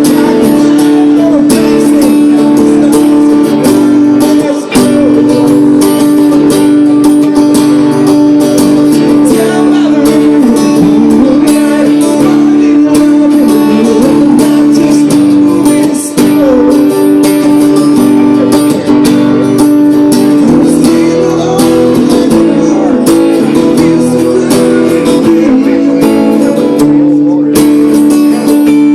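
Music led by a strummed acoustic guitar, with a singing voice over it.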